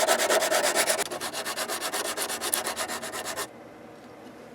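Rapid, even back-and-forth hand scrubbing on the metal hinge area of a door, a sanding or rasping rub that stops abruptly about three and a half seconds in.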